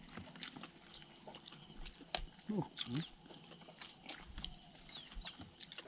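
People eating by hand at a shared meal: scattered small clicks and mouth sounds of chewing over a steady faint hiss. A little over two seconds in comes a short grunt, two quick falling sounds.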